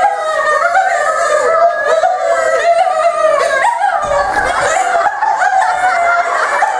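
Several people laughing together, many voices overlapping without a break.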